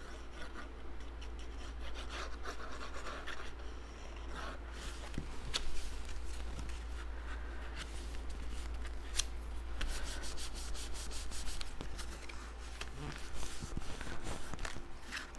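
Cardstock being handled and rubbed by hand, with rustling, scraping and scattered small clicks as the paper pieces are pressed and worked together.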